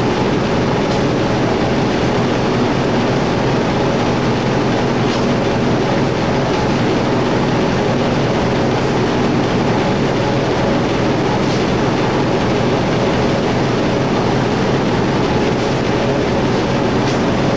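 Loud, steady machine drone with a low hum: shop equipment running in the paint booth, the kind of noise a ventilation fan or air compressor makes.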